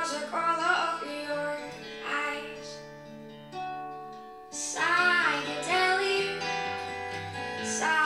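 A recorded song played back through a hi-fi system's large floor-standing loudspeakers: a voice singing over guitar and sustained low bass notes. The voice drops out for about a second near the middle, then comes back.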